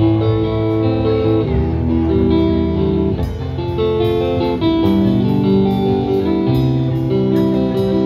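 Live band playing an instrumental passage: guitar lines of held notes over bass guitar, with drum cymbals ticking from about three seconds in.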